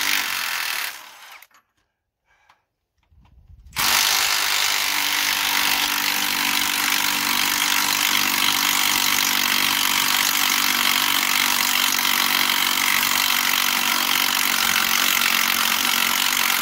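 Cordless impact wrench on a stubborn fastener. It gives a short burst right at the start, stops, then runs again from about four seconds in as a long steady rattle, working the fastener loose.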